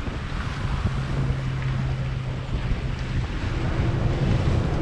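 A sportfishing boat's engines running with a steady low hum, under wind buffeting the microphone and the rush of the churning wake behind the stern.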